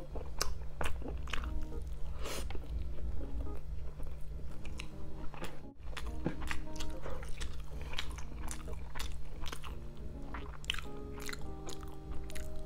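Close-miked mouth sounds of someone eating rice and pork ribs adobo: chewing with many wet clicks and smacks throughout. Soft background music plays underneath.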